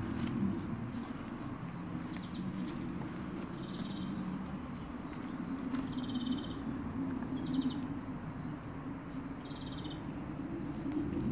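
A small animal's short, rapidly pulsed chirps, about six of them, one to two seconds apart, over a steady low rumble.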